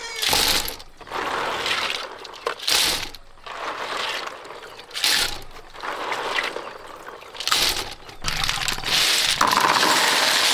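Water splashing and pouring in short repeated bursts, roughly one a second, with quieter gaps between them.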